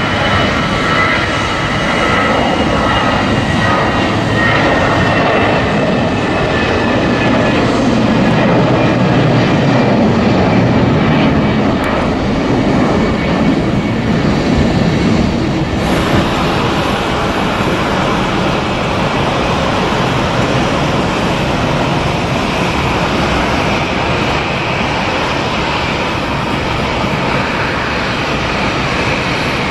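Jet airliner engines: a whine falling in pitch over the first several seconds over a loud, steady engine noise, which carries on after an abrupt change about halfway through.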